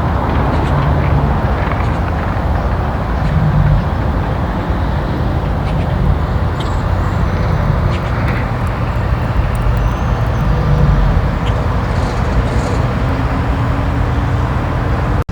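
Loud, steady vehicle rumble with no clear single event in it, cutting off abruptly near the end.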